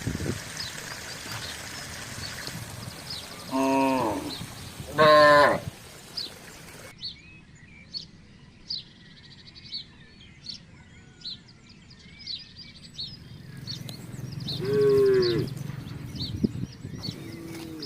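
Village cattle mooing: three drawn-out calls, the second and loudest about five seconds in, the last near the end. Small birds chirp briefly and repeatedly in the background.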